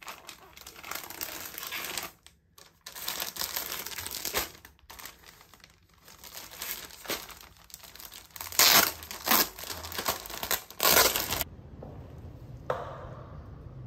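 Packaging being crinkled and rustled by hand, in irregular bursts with a few louder crackles late on, stopping suddenly about eleven and a half seconds in; a low steady hum remains after it.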